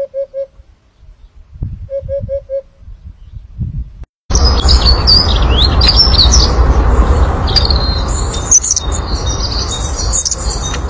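Many small birds chirping and twittering with quick gliding whistles over a steady low rumble; this starts abruptly about four seconds in. Before it come two runs of four short, low, evenly spaced notes.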